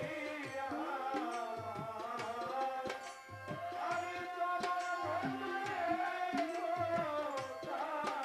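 Male voice singing a Bengali folk song (pala gaan) in long melodic lines into a microphone, over a steady beat of drum strokes.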